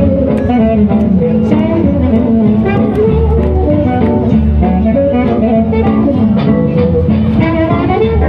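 Music led by guitar over a bass line, playing continuously at a steady level.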